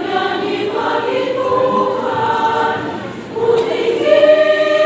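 Women's choir singing; the sound dips briefly about three seconds in, then swells to a louder held chord.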